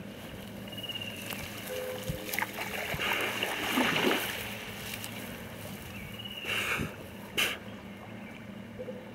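Water splashing and sloshing as people wade around a flooded four-wheel drive, over a steady low hum. A louder swell of noise comes about three to four seconds in, and two short sharp noises near seven seconds.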